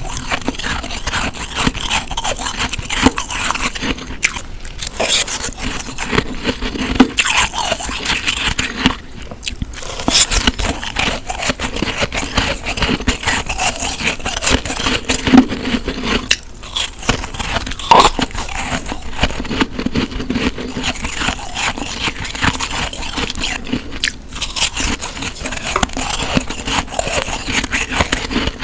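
Close-miked biting and chewing of snow: a dense, continuous run of crisp crunches and scrapes, with a few brief lulls between bites.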